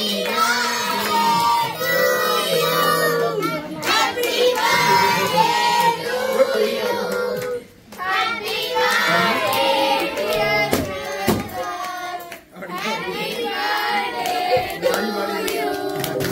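A group of children singing the birthday song together, with hands clapping along.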